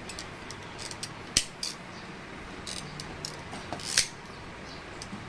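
Hard plastic and metal parts clicking and tapping together as a fuel pump and filter assembly is handled and fitted. Mostly light taps, with two sharper clicks, one about a second and a half in and one about four seconds in.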